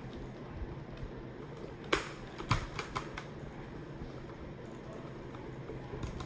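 Motorcycle helmet padding being handled and pushed back into the shell, with a handful of sharp plastic clicks between about two and three seconds in as the pad clips snap into place.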